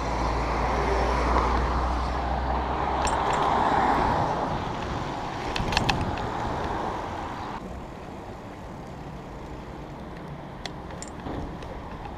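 Road traffic on a city street: passing vehicles with a low rumble, dropping suddenly to quieter background traffic about two-thirds of the way through, with a few light clicks.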